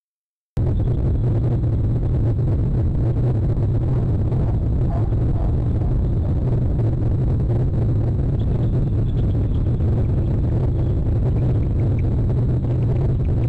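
Steady low rumble picked up by an outdoor webcam microphone. It cuts in about half a second in, after a brief dropout to silence.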